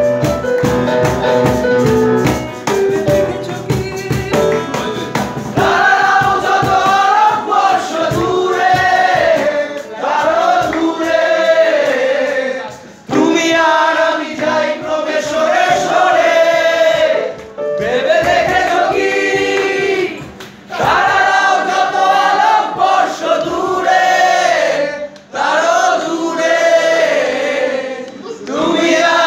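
Live keyboard, cajon and acoustic guitar playing a song; about six seconds in, a group of men starts singing together in phrases with short breaks between lines.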